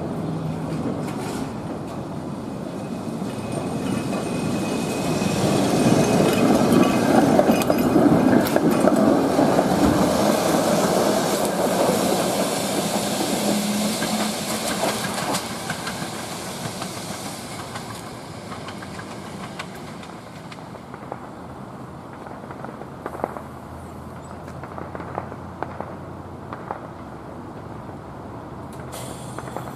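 PCC streetcar No. 7407 running on its rails, a steady rolling rumble with the clatter of its wheels over the track. It is loudest about a third of the way in and quieter with light clicks near the end.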